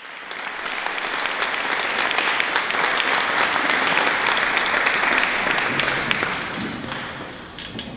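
Audience applauding, the clapping swelling to a peak midway and dying away near the end.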